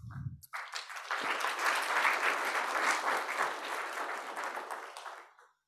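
Audience applauding, swelling over the first couple of seconds and dying away about five seconds in.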